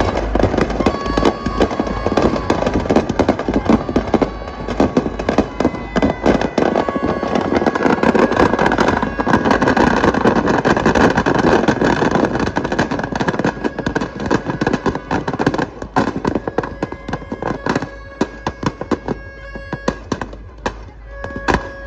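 Firecrackers going off in a rapid, dense string of cracks, thinning out and getting quieter in the last few seconds.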